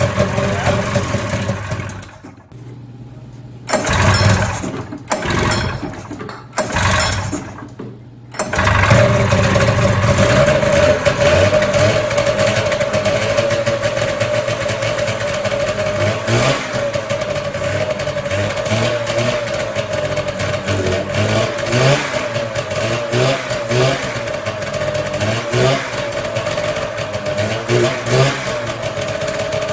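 Polaris Supersport snowmobile's two-stroke twin running, then stumbling and nearly dying about two seconds in, coughing back in a few short bursts and catching again near eight seconds, after which it runs steadily with a slightly wavering pitch. It is a first start after years of sitting, with a hand held at the carburettors as a choke.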